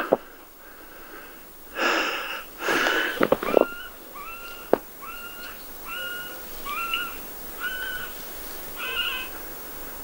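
A run of about eight short, squeaky calls, evenly spaced, each rising briefly and then held on one pitch, coming after two short rough noises.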